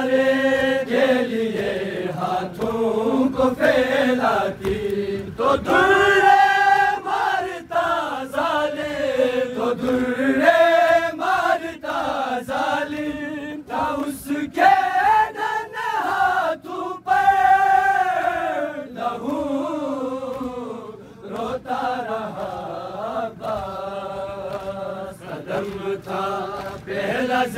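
Noha reciters' voices chanting an Urdu Shia mourning lament in long, drawn-out phrases that rise and fall in pitch.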